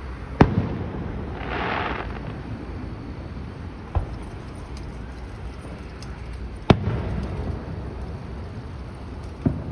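Aerial fireworks shells bursting: separate bangs, the loudest just under half a second in and again past the middle, a weaker one about four seconds in and another near the end, with a brief hiss soon after the first bang.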